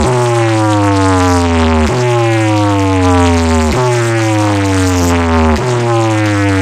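Loud DJ sound-box playback of an electronic competition track: a deep bass note under a falling synth tone, repeating about every two seconds.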